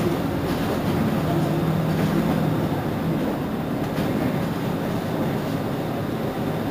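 Mercedes-Benz Citaro C2 city bus engine idling steadily at a standstill, a low even hum over street noise.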